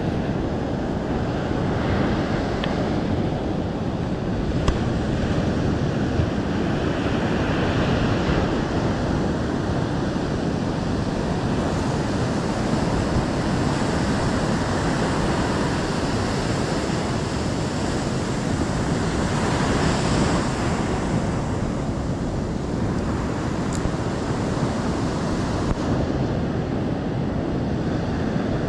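Ocean surf breaking and washing up a sand beach, swelling and easing every several seconds, with wind on the microphone.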